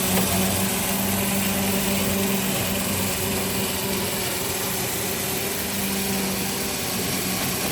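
An engine running steadily with a constant hum and no change in speed.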